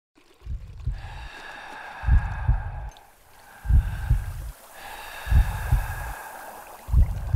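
Slow heartbeat sound effect: five deep double thumps, lub-dub, about one every second and a half, over a steady high hum.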